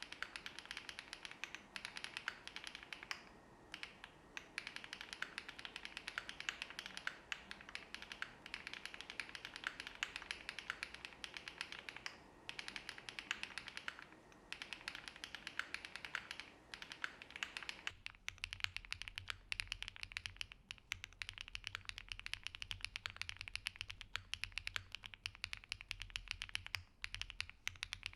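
Fast, continuous typing on a gasket-mounted custom mechanical keyboard with HMX Xinhai linear switches, an aluminium plate, full foam and GMK keycaps: a dense stream of key clacks. About two-thirds through, the recording switches from the camera's microphone to another microphone, and the keystrokes sound drier over a low hum.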